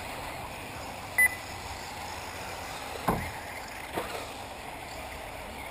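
Electric 1/8-scale RC buggies running on an off-road track, their faint motor whine under a steady rush of outdoor noise. A short electronic beep comes about a second in, and a sharp knock with a quickly falling whine comes about three seconds in, followed by a lighter knock a second later.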